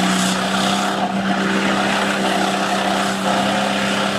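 Off-road 4x4's engine held at high, steady revs.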